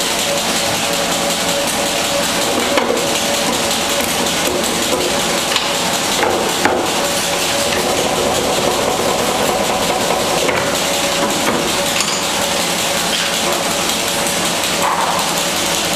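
Sinmag SM 330 bun divider rounder running with a steady mechanical hum, broken by a few sharp knocks and clunks as its lever, pressing head and dough plate are worked.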